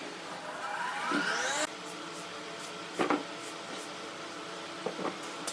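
A rising whine that climbs steeply and cuts off suddenly, then a few sharp knocks of wood on wood as a wooden wagon wheel is set down onto another wooden wheel, over a steady workshop hum.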